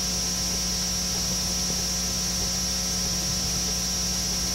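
Steady electrical mains hum with a constant hiss, with no other event: room tone through the church's sound system during a deliberate silence.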